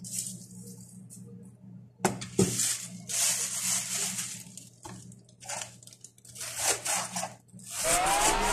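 Plastic shopping bag rustling and crinkling in bursts as a cabbage head is handled in and out of it, with a knock about two seconds in. Electronic music starts near the end.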